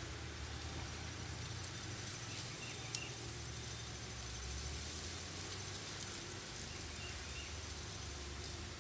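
Quiet outdoor ambience: a steady low rumble with a faint thin high tone, a few faint short chirps now and then, and a single sharp click about three seconds in.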